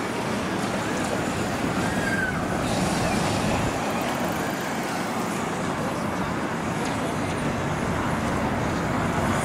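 Steady road traffic noise from passing cars, with a short high chirp about two seconds in.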